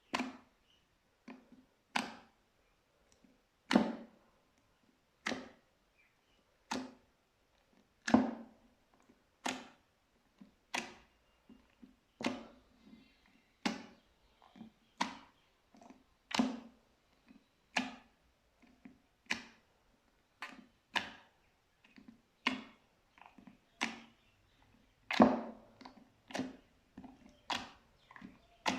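Slime being pressed and mixed: a string of short, sharp squishy pops, about one every second and a half, each fading quickly.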